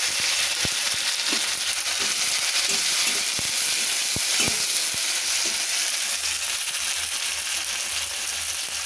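Sliced onions and tomato sizzling in hot mustard oil in a kadai (wok): a steady high hiss, with a few sharp taps and scrapes of a metal spatula as they are stirred. The sizzle eases off slightly toward the end.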